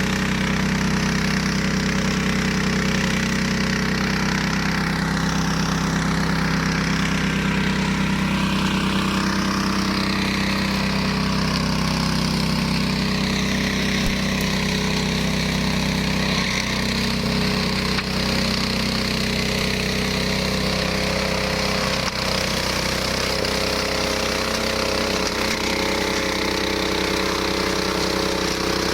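Homemade flail mower's Hyundai 15 hp engine running steadily under power, with a slight change in engine note about midway and again near 22 seconds in.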